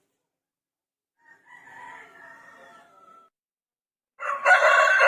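Rooster crowing: a fainter crow about a second and a half in, then a loud crow that starts near the end.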